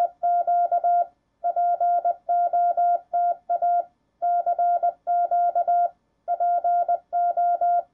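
Morse code sent as a single steady beeping tone, keyed in short and long beeps that fall into groups with brief pauses between them.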